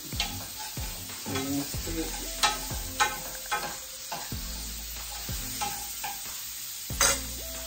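Fatback frying in a pot, sizzling steadily, while a spoon stirs it, clinking and scraping against the pot in irregular strokes.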